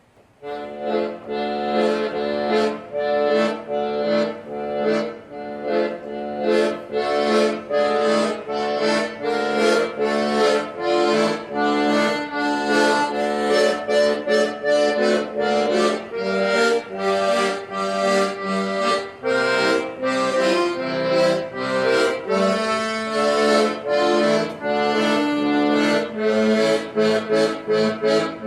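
Accordion playing a tune: a melody over a held bass note, with a steady pulse of short chords. It starts just after the beginning.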